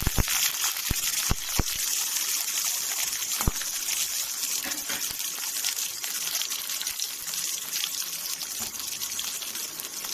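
Capsicum and green chilli slices sizzling and crackling in hot oil in a kadai, easing slightly toward the end. A spatula knocks sharply against the pan a few times in the first few seconds.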